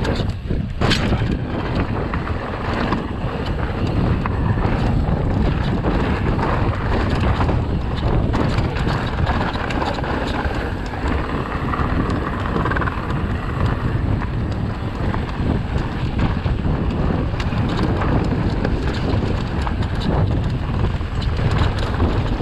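Wind buffeting the microphone of a camera on a moving bike, a steady heavy rush, with frequent short rattles and knocks from the bike over rough ground; a sharp knock about a second in.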